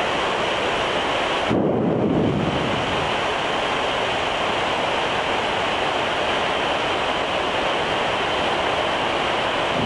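Steady rushing noise inside a Boeing 787 flight deck at cruise, from airflow and air-conditioning. About a second and a half in, it briefly turns deeper and a little louder.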